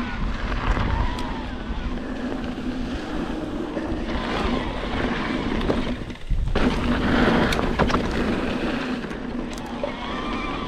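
Specialized Turbo Levo SL e-mountain bike rolling fast down a dirt trail: wind rushing over the microphone and knobby tyres on dirt, with a steady low motor hum underneath. The sound drops out briefly about six seconds in.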